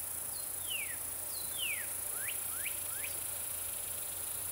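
A bird whistles a short series of slurred notes: two falling notes in the first two seconds, then three quick rising notes. Under them runs a steady, high-pitched insect chorus.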